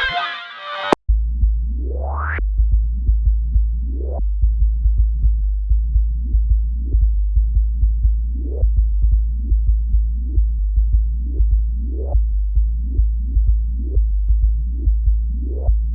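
Reason Subtractor synthesizer bass patch playing a busy low line of short repeated notes, each with an upward resonant filter sweep. It is preceded by a bright chord patch that cuts off with a click about a second in.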